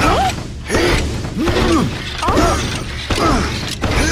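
Cartoon jumping sound effects as an animated truck hops repeatedly: a rising-then-falling glide with each hop, about five in four seconds, with knocks between.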